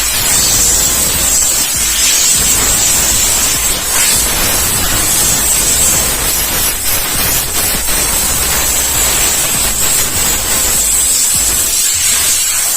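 A steady, loud spraying hiss with a thin high whistle running through it, from a cleaning jet played over a car AC condenser.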